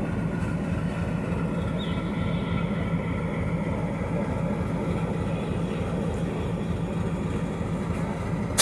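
Indian Railways diesel locomotive's engine idling while standing, a steady low rumble.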